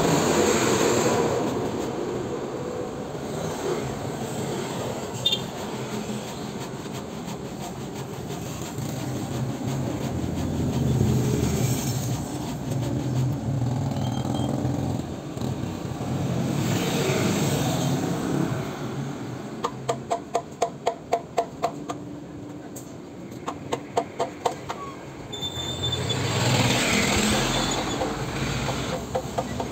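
Road traffic going by in waves, with a heavy truck passing at the start and motorcycles and tricycles later. Midway come two short runs of rapid, evenly spaced clicks, about four a second.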